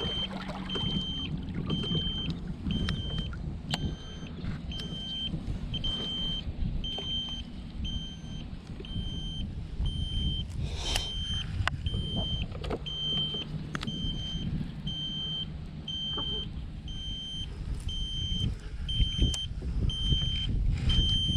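Small electric trolling motor humming steadily, with a short high electronic beep repeating about twice a second throughout. A sharp click sounds about eleven seconds in.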